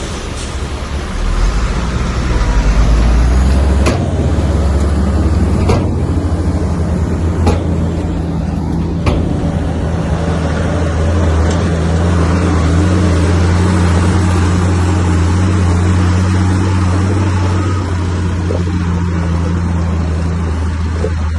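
Heavy diesel engine of an earthmoving machine running hard, its note stepping up about four seconds in and then holding steady, with a few sharp metallic clanks in the first half.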